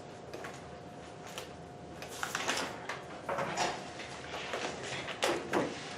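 Several short rubbing or scraping noises, a few strokes spaced about a second apart in the second half, over a faint steady hum.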